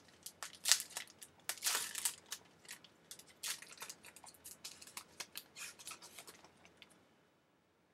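A trading card pack wrapper being torn open and crinkled by hand: a quick run of sharp crackles and rustles, loudest in the first two seconds, thinning out and stopping near the end.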